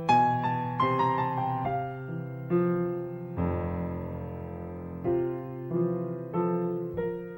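Solo piano music: a gentle melody of notes struck about every half second, with one chord held for about a second and a half midway.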